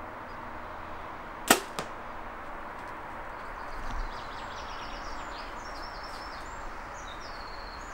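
A compound bow shot: one sharp, loud snap about a second and a half in, then a fainter knock a moment later as the arrow strikes the foam 3D deer target.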